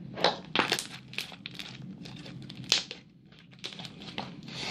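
Homemade slime being squeezed and squished in the hands, giving a run of irregular sharp pops and crackles.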